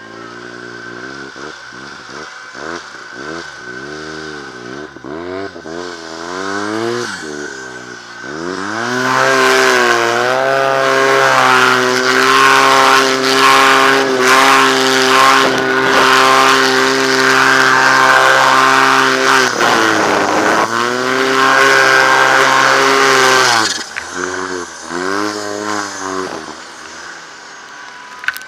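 Arctic Cat M1100 turbo snowmobile's four-stroke three-cylinder engine revving up and down in quick blips for about eight seconds, then held at high revs for about fifteen seconds with a short dip partway through, then blipping up and down again before easing off near the end.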